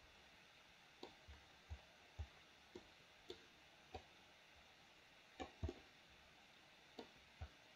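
Faint, scattered clicks of a computer mouse and keyboard, about a dozen at irregular intervals, against near silence.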